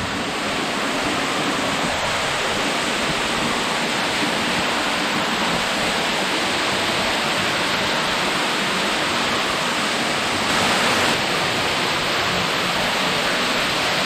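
Underground waterfall pouring into a pool: a loud, steady rush of water, running high with snowmelt.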